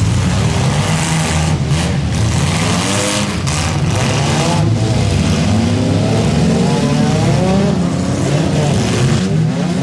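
Several demolition-derby cars' engines running loudly and revving up and down, with a few sharp knocks mixed in.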